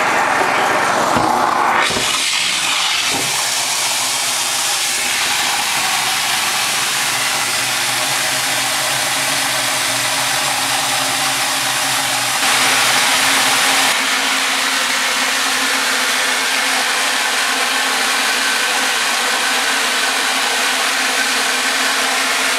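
Pressure washer running steadily, its submerged high-pressure jet churning thickened copper sulphate footbath solution inside a plastic drum. The hiss brightens about two seconds in, with a brief louder stretch about halfway through.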